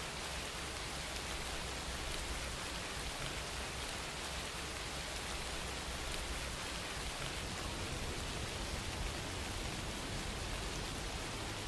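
Steady rain falling: an even, continuous hiss of rain with no breaks or changes.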